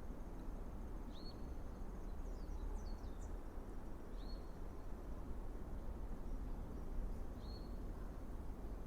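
Bird calls over steady outdoor background noise: a short high whistled note that slides up and levels off, given three times about three seconds apart, with a quick run of higher chirps between the first two.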